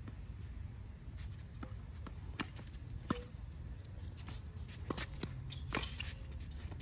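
Tennis rally: sharp pops of racket strings striking the ball and the ball bouncing on the hard court, several over a few seconds, the loudest about three seconds in with a brief ring. Shoes shuffle on the court between shots.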